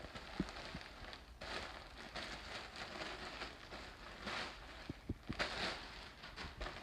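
Plastic mailer bag crinkling and rustling as it is torn open and pulled off a backpack wrapped in clear plastic. The louder rustles come about one and a half, four and a half and five and a half seconds in.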